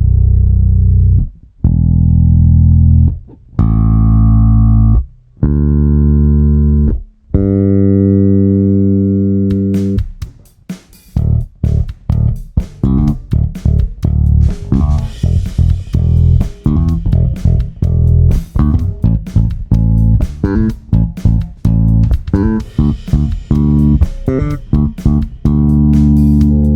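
Electric bass with EMG 40DC and Aguilar OPB-2 electronics played alone: a few long held notes, each ringing out for a second or two. From about ten seconds in comes a fast run of short plucked notes with sharp attacks, and it settles on a held note near the end.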